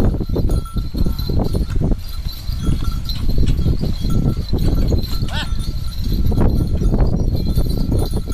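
A pair of bulls pulling a bullock cart, the small bells on them ringing on and off with their walking, over a heavy low rumble.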